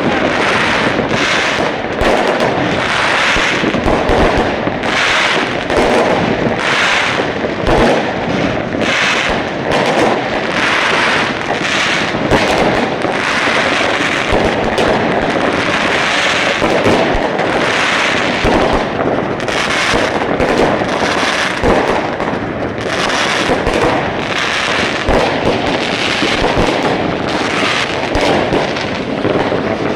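Fireworks going off in a dense, continuous barrage: many bangs and crackles overlapping without a pause, at a steady loud level.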